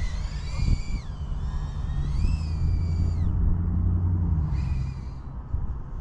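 A 2-inch FPV micro drone's brushless motors whine, the pitch rising and falling as the throttle changes, over a low rumble of wind on the onboard microphone. About halfway through the whine drops away, comes back briefly, then fades again.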